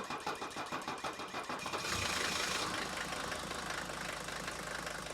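Honda car engine idling, a steady run of rapid even pulses, a little louder from about two seconds in.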